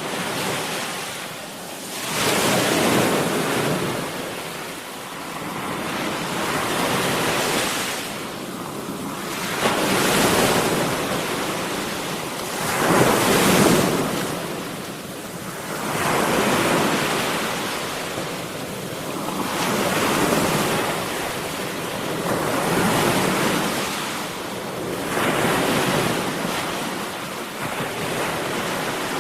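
Sea waves breaking and washing on the shore, each wave swelling and fading about every three seconds, with wind on the microphone.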